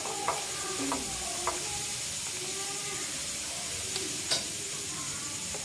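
Wild bees stir-frying in a pan: a steady sizzle with a few sharp clicks as they are stirred, the loudest about four seconds in.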